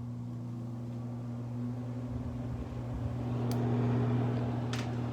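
Frigidaire 6000 BTU air conditioner running in fan mode: a steady motor hum, with the rush of air building up from about two seconds in. Two light clicks come near the end.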